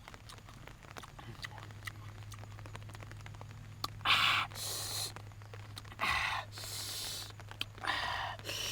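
A person's sharp, noisy breaths: three pairs of short in-and-out hisses about two seconds apart, starting about four seconds in, over a low steady hum.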